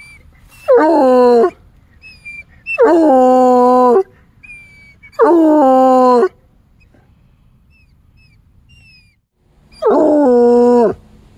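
Bluetick coonhound baying: four loud howls about a second long each, every one sliding down in pitch at the start and then held steady, with a longer pause before the last.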